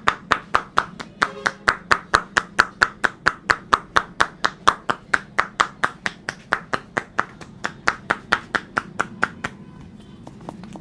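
Rapid rhythmic slaps of a barber's hands during a head massage, about four to five hollow strikes a second in an even run, stopping near the end.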